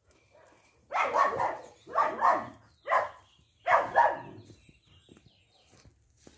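A dog barking, a quick run of about six harsh barks in four groups over some three seconds.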